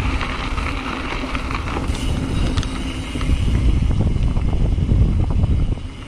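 Wind buffeting the camera microphone over the rumble of a full-suspension mountain bike riding a rough downhill trail, with scattered clattering ticks from the bike over the bumps.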